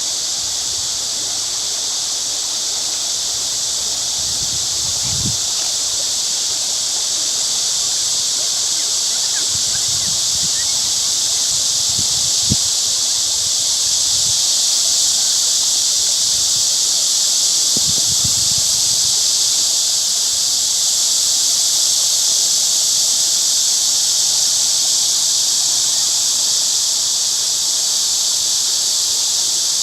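A stream's water flowing, a steady high hiss, with a few faint low thumps.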